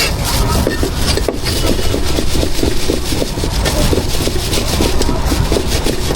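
Food being prepared at a braised-food stall: quick, fairly even knocking, several strokes a second, over a steady low rumble.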